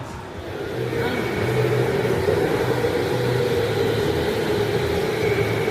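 Electric go-karts running on an indoor track, a steady motor whine with a higher tone above it, growing louder about half a second in.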